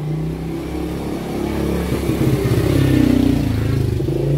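A motorcycle engine passing close by. It grows louder to a peak about three seconds in, then begins to fade.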